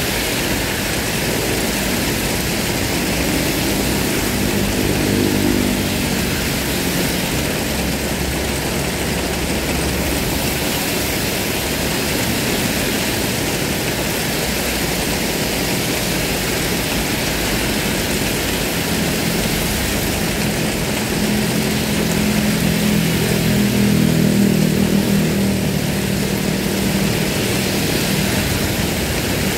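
Heavy rain falling steadily, with cars driving past on the wet road. Engine hum swells as vehicles go by, loudest about five seconds in and again around twenty-four seconds in.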